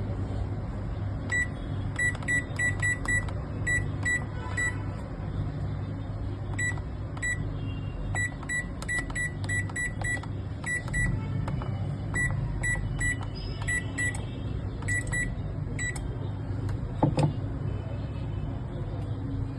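LG microwave control panel beeping as its keys are pressed: about thirty short, identical high beeps in quick runs, each press registering on the newly replaced key switches. A steady low hum runs underneath, and there is one thump near the end.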